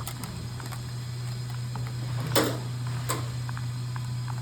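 A loose tanning-bed ballast being handled, with light clicks and two louder knocks about two and a half and three seconds in, over a steady low hum.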